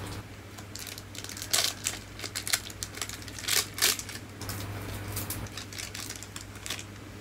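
Thin plastic snack-cake wrapper crinkling and crackling as it is torn and peeled open by hand: several sharp crackles with lighter rustling between.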